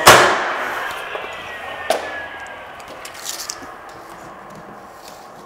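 Cordless 18-gauge brad nailer firing a nail into the door header: one sharp crack, then a long fading tail with a faint tone slowly falling in pitch. A lighter click follows about two seconds in.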